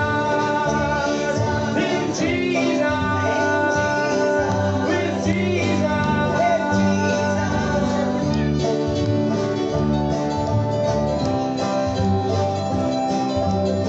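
Live country-bluegrass gospel band playing, with acoustic guitar and sung vocals, the singing mostly in the first half.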